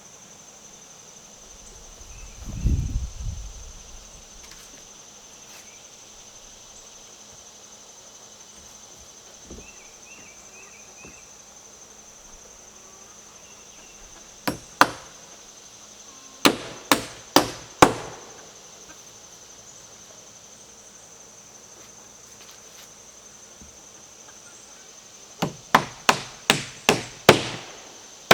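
Hammer driving nails into wooden batten boards, in quick runs of sharp strikes: two, then four, then a run of six near the end. Before them comes a low rumble. A steady high insect buzz runs underneath.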